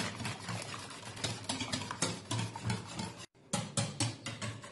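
Wire whisk beating a runny flour batter in a bowl, in quick rhythmic strokes of about four or five a second, the wires scraping and tapping the bowl's sides. The sound cuts out for a split second a little over three seconds in, then the whisking goes on.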